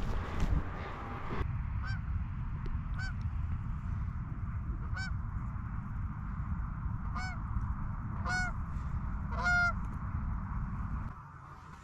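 Canada geese honking: about six single honks a second or two apart, the last two loudest, over a steady low rumble that cuts off near the end.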